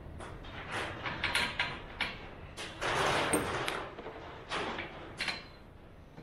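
Metal-on-metal scraping and clicking from a unistrut channel bar and its captive nut being slid and handled: several short clicks and knocks, with a longer scrape about three seconds in.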